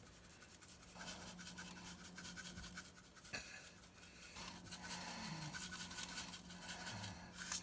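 Faint, rapid rattling of black and tan sesame seeds shaken out of a bottle, in two spells with a short break about three seconds in.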